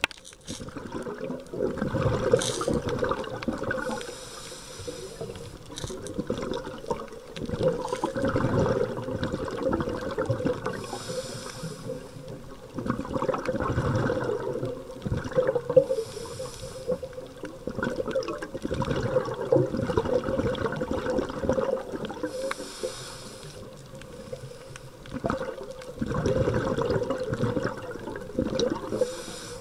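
Scuba diver breathing underwater through a regulator: a short hissing inhale, then a longer bubbling exhale, about five slow breaths.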